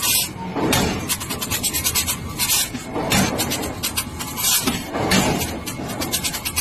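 A forging hammer strikes a red-hot steel billet in rapid repeated blows, upsetting it into a flat disc as the first step in forming a train wheel. Heavier, noisier surges come about every second or two.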